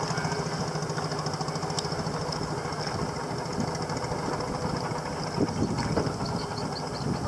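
Small river boat's engine running steadily with an even, rapid beat.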